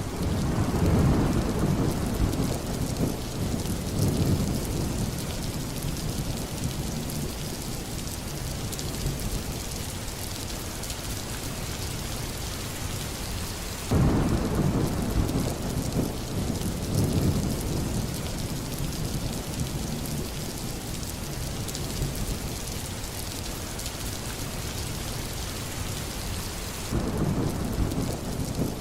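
Steady heavy rain with rolling thunder. A deep rumble of thunder starts at the beginning, again about halfway and once more near the end, each dying away over several seconds under the constant hiss of the rain.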